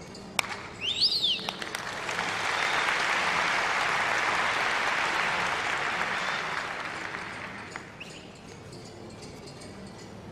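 Theatre audience applauding, swelling for about six seconds and fading near the end, preceded by a short whistle that rises and falls in pitch.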